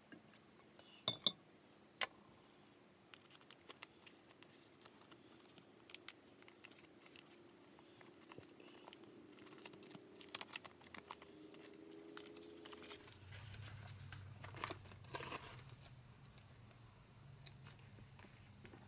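Quiet handling sounds: scattered light clicks and taps with some crinkling. A low steady hum comes in about two-thirds of the way through.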